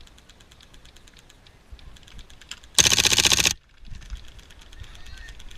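Airsoft electric gun firing one short full-auto burst of about three-quarters of a second, a rapid, clicky rattle, a little under halfway through. Faint rapid clicking of other airsoft guns goes on around it.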